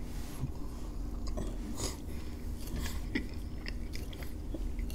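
Chewing and mouth sounds of people eating, with scattered small clicks.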